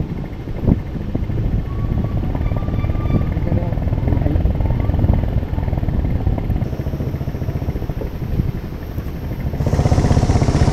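A motor vehicle engine running steadily on the move over a rough off-road track, with a few knocks near the start and louder near the end.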